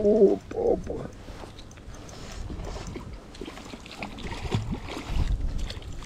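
Gusty wind buffeting the microphone in uneven surges, with two short low hums right at the start.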